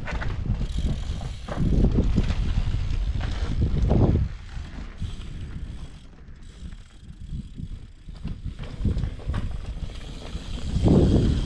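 Mountain bike rolling over sandstone slickrock: tyres grinding and rumbling on the rock, with the rear hub ticking. The sound is loud for the first few seconds as the bike passes, fades as it rides off, and comes up again near the end.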